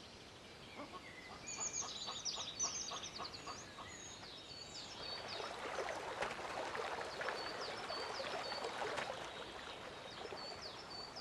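Small birds chirping, then from about five seconds in a longer spell of rustling and small stones clattering as a Eurasian lynx leaps across limestone scree.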